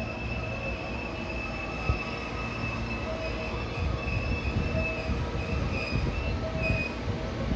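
JR West 225 series and 223 series electric train rumbling along with a steady high-pitched squeal from its wheels, joined now and then by a lower squeal.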